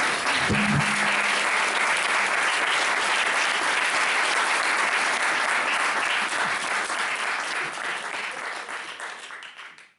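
Audience applauding: many hands clapping in a steady patter that fades out over the last couple of seconds.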